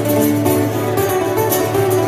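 Acoustic guitar playing an instrumental passage of a song, over a steady held low note.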